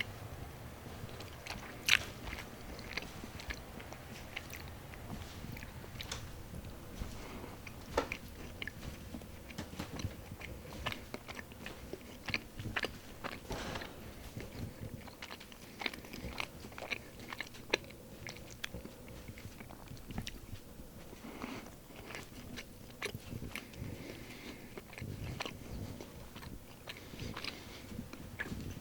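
Bread being bitten and chewed close to the microphone, with many short crunches and crackles scattered throughout; one sharp crunch about two seconds in is the loudest.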